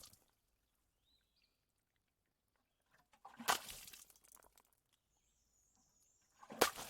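Water splashing onto cement twice, about halfway through and again near the end, each a sudden splash that trails off over about a second. Faint bird chirps in the quiet between.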